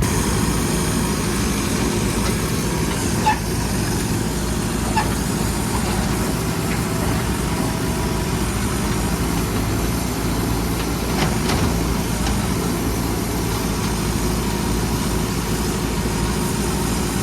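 Diesel engine of a Mahindra backhoe loader running steadily, with a few short knocks and clatters, the sharpest about three seconds in.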